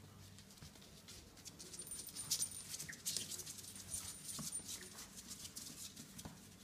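Coton de Tulear puppies playing on a tile floor: a run of quick clicks and scrapes from claws and toys, mixed with faint whimpers.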